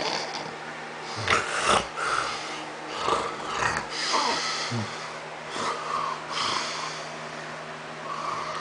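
A man snoring in his sleep: a string of irregular, loud breaths, the loudest about a second and a half in.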